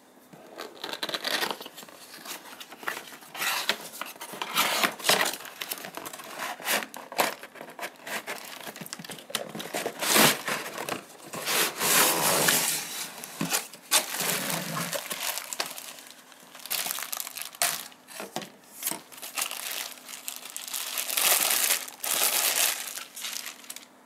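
Cardboard box and plastic bag packaging being handled as a hair dryer is unboxed: irregular crinkling and rustling of plastic wrap, with cardboard flaps being pulled open.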